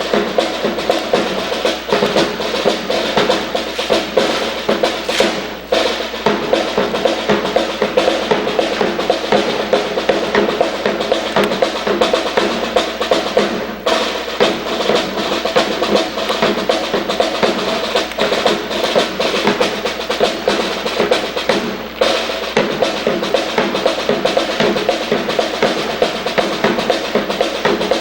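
Drum-led marching music: snare and bass drums playing continuous rolls and cadences, with brief breaks between phrases about every eight seconds.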